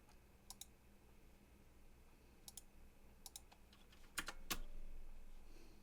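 Scattered clicks of a computer keyboard and mouse as software is being operated: a few short clicks here and there, with two louder ones a little after four seconds in.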